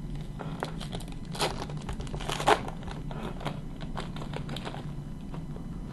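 A hockey card pack's wrapper crinkling and tearing as it is opened, with the cards being handled. Two sharper crackles come about a second and a half and two and a half seconds in.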